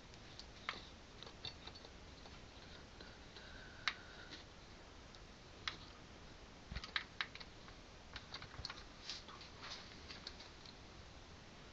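Faint, irregular clicks and taps of hands handling the plastic and metal parts of a radio-controlled crawler truck, over a low steady hiss. The sharpest click comes about four seconds in, and a quick cluster of taps follows around seven seconds.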